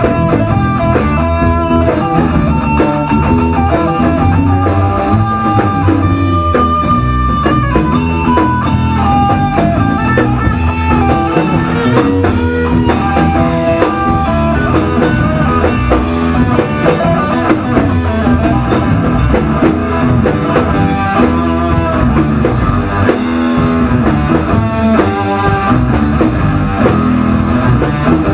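Rock band playing live, electric guitar over a drum kit, in an instrumental passage without vocals.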